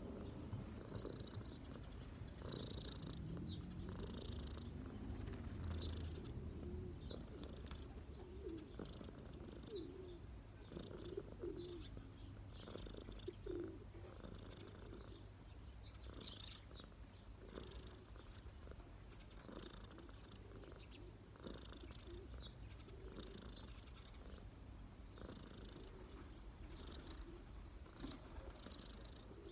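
Cat purring steadily at close range while being stroked, a low continuous rumble.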